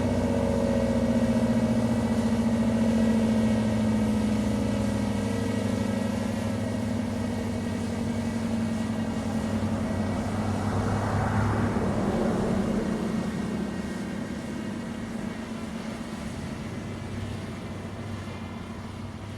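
ACA P-10 outdoor warning siren winding down at the end of its alert: its tone slides slowly lower and fades away. A swelling rush of noise rises and passes about ten to thirteen seconds in.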